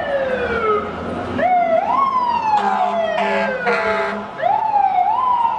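Emergency-vehicle sirens wailing, two of them out of step, each sweeping quickly up in pitch and then sliding slowly down, over and over. A few short horn blasts sound about halfway through.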